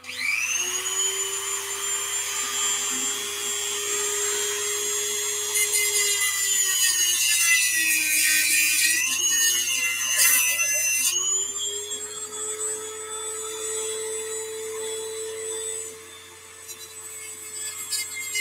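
Handheld corded rotary tool spinning up to a steady high whine. Its pitch sags and turns gritty under load from about 8 to 11 seconds as it cuts the mounting tabs off a replacement RC-plane landing-gear retract, then climbs back.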